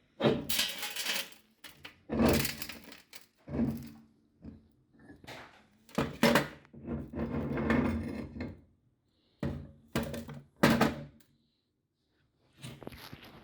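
Meat grinder crushing roasted chickpeas (parched grams): irregular bursts of crunching and cracking, with short pauses between them.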